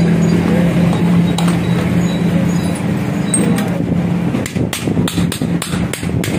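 Blacksmith's hammer striking the sickle blank on the anvil, a quick run of blows, about four or five a second, starting about four and a half seconds in. Under it runs a steady low hum.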